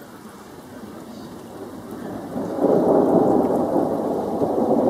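Rain falling, with a roll of thunder that swells in about halfway through and stays loud, a deep rumbling noise.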